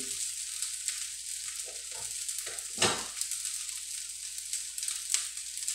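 Rice frying in a stainless steel wok over a gas burner: a steady sizzle, with a single sharp click about three seconds in.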